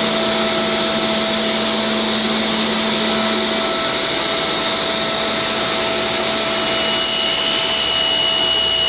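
An electric motor in a woodworking shop running steadily, a constant rushing noise with a fixed whine; a lower hum drops out a little under four seconds in.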